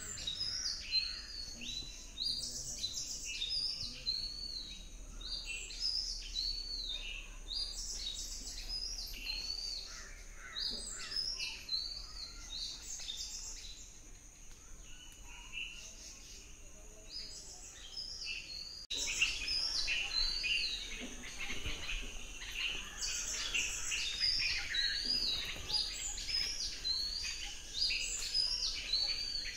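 Forest birds chirping and calling: many short, high, quickly repeated notes that overlap throughout. About two-thirds of the way through, the sound changes abruptly to a louder, denser chorus.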